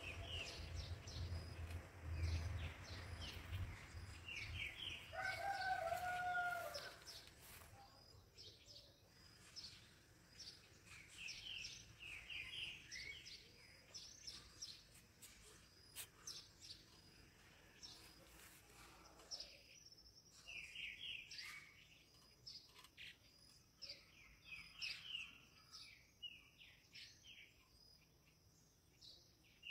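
Small birds chirping in short, repeated calls throughout, with a rooster crowing once about five seconds in. A low rumble sits under the first few seconds.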